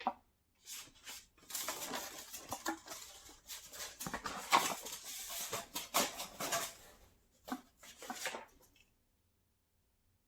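Plastic snack wrappers crinkling and rustling as they are handled, in irregular crackling bursts that stop near the end.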